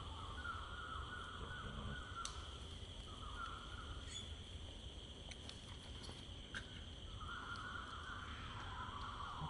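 Outdoor insect ambience: a steady high drone, joined by a lower chirring that comes and goes in stretches of a second or two, over a low rumble.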